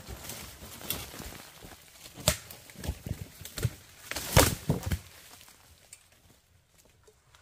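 Dry leaves and twigs crunching and snapping in an irregular string of cracks, loudest about two and four seconds in, fading out about five seconds in.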